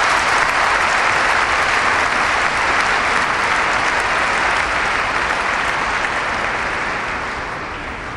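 Audience applauding, a steady clapping that slowly dies away near the end.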